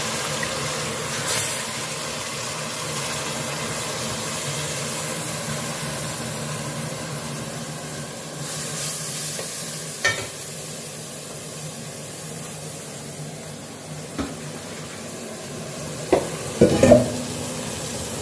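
Pieces of beef sizzling as they fry with paprika in a pot, being stirred, with a few short knocks, the loudest near the end.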